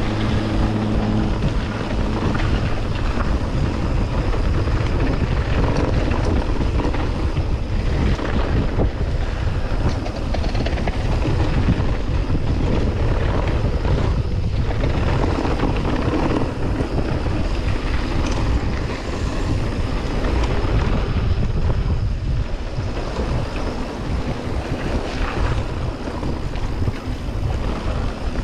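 Wind buffeting the microphone of a helmet or bar-mounted camera on a mountain bike riding down a dirt and gravel trail, with the tyres rolling over the ground and frequent knocks and rattles from the bike.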